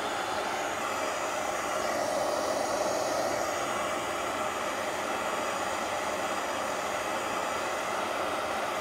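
Steady blowing hiss of the heater warming the hot end of a home-built Stirling engine, with no clear beat from the engine itself.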